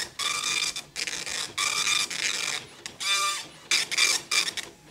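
Dot-matrix printer printing a turnout sheet line by line, in a run of short rasping, buzzing passes of the print head with brief pauses between them as the paper feeds out.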